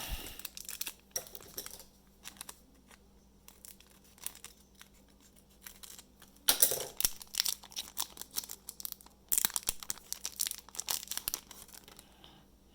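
Plastic cello wrapper of a trading card pack crinkling and tearing as the pack is opened and the cards handled. It comes in scattered crackles, with louder bursts about six and a half seconds in and from about nine to eleven seconds.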